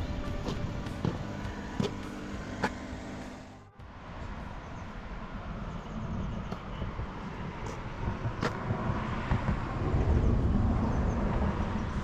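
Motor vehicle noise: a steady pitched hum with a few clicks that cuts off sharply about four seconds in, then a low rumble that grows louder near the end.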